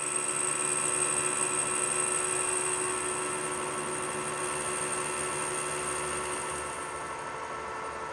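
Metal lathe running while a positive-rake carbide insert turns down the workpiece at a reduced feed, a heavily interrupted cut. It gives a steady whine with a high thin tone that stops near the end.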